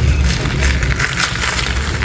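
Dry sand domes being crushed and crumbling: a gritty crunching made of many small crackles over a steady low rumble.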